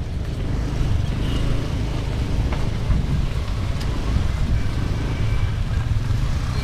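Motorcycle riding slowly: a steady low engine rumble mixed with wind buffeting on the bike-mounted microphone.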